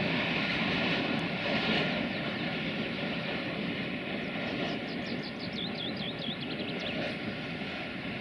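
Open freight wagons rolling along the track, a steady rumble and rattle of wheels on rail that slowly fades as the train moves away. A bird chirps a quick run of high notes about two-thirds of the way through.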